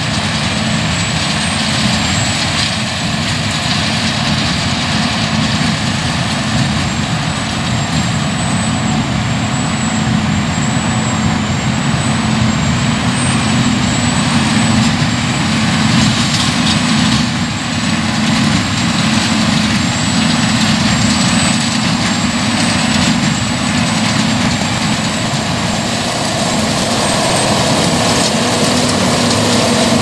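Massey Ferguson 8740S tractor's six-cylinder diesel running steadily under load while it pulls a Massey Ferguson 2270XD large square baler working through straw, the baler's machinery adding a continuous mechanical clatter.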